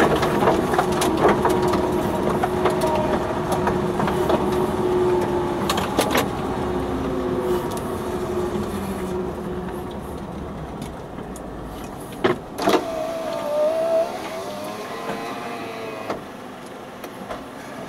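Heard from inside the cab, a 4x4 slows to a stop and settles to idle. Its running noise dies away gradually, and a steady whine fades out over the first several seconds. A couple of sharp knocks come about twelve seconds in.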